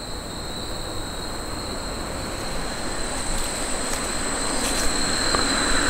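Insects calling in a steady high-pitched drone, over a broad rushing noise that grows gradually louder.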